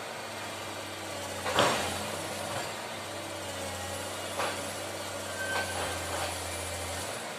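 Excavator's diesel engine running steadily, with a loud clank about a second and a half in and a few lighter knocks later.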